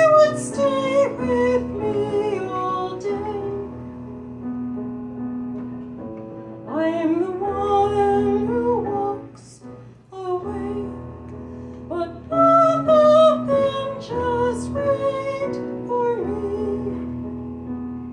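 A woman singing a slow song while accompanying herself on an electric keyboard; her sung phrases come and go over sustained keyboard chords that carry on alone in the short gaps between lines.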